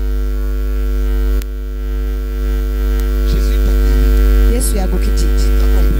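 Loud, steady electrical mains hum through the sound system, a low drone with a ladder of higher steady tones over it. A voice is heard briefly about four and a half seconds in.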